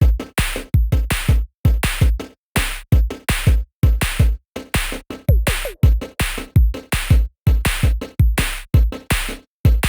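Background electronic music with a heavy drum-machine beat: punchy bass kicks and chopped, stuttering sample hits at about two beats a second.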